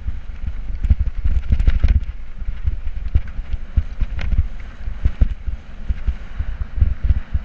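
Mountain bike ridden over a rough dirt trail: wind rumbling on the mount-camera's microphone, with irregular knocks and rattles as the bike and tyres jolt over rocks and gravel.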